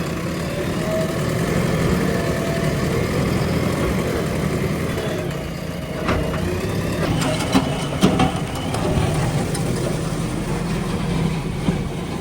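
JCB 3DX backhoe loader's diesel engine running steadily while it works. A few sharp knocks and clanks come about halfway through.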